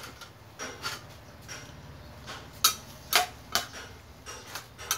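Irregular sharp knocks of a knife cutting raw beef on a thick wooden chopping block, mixed with clinks of a metal spatula against a steel pan. A faint steady low hum runs underneath.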